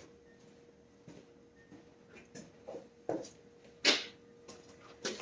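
Scattered light clicks and knocks of hand tools being handled, the loudest about four seconds in, over a faint steady hum.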